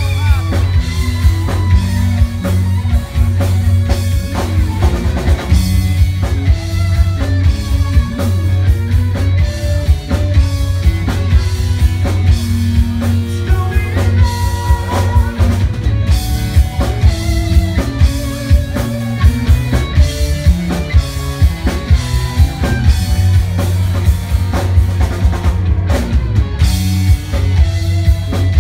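Live rock band playing loud through a PA: drum kit with a steady bass-drum beat, electric guitars and bass guitar.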